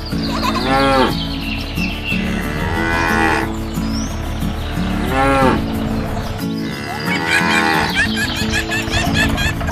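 Cartoon cow mooing four times, each moo rising then falling in pitch, over steady background music.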